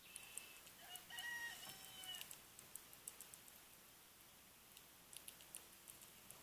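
Baby squirrel giving a few faint, short squeaks in quick succession over about two seconds, with soft clicking throughout.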